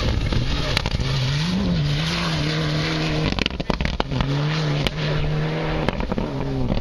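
Rally car driven hard on a gravel stage: the engine note climbs and then holds at high revs, drops away for about a second around the middle, then comes back and holds again. Steady gravel and tyre noise runs underneath.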